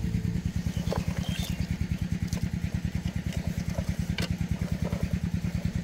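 An engine idling with a steady, rapid chugging pulse and a few light clicks over it.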